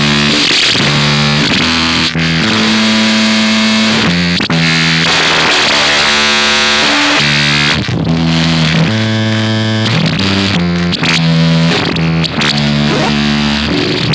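Loud, heavily distorted noise music: a dense harsh hiss under distorted guitar-like tones that step from pitch to pitch every half second or so, with a few brief drop-outs.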